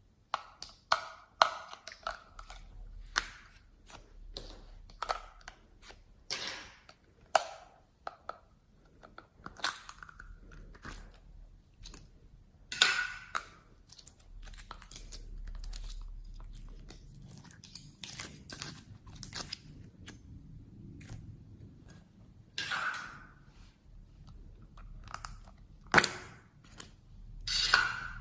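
Slime being squeezed and poked by hand, giving irregular sticky pops and crackles.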